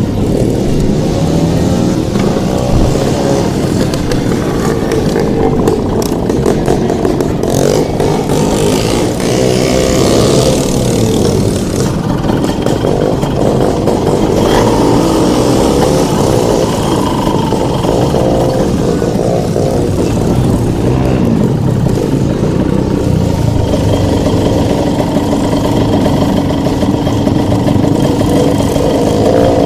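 Two-stroke motocross bike engine running close to the camera, revving up and down, then holding a steadier speed over the last several seconds.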